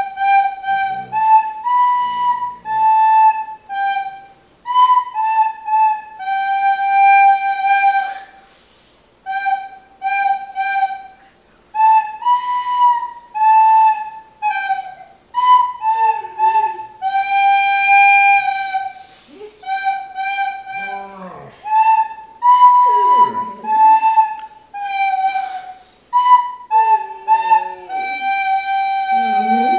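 A recorder playing a slow, simple tune note by note, some notes held for about two seconds. In the second half, lower gliding cries come in under the notes as a dog begins to howl along.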